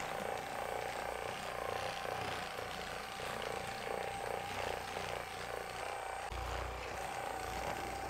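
Theragun percussive massage gun running against the muscles of a person's back: a steady motor buzz with a rapid hammering pulse that holds one pitch throughout.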